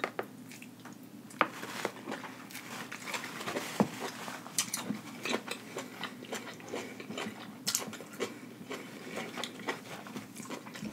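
Close-miked chewing of a mouthful of sauce-covered lobster meat, with irregular mouth clicks and smacks.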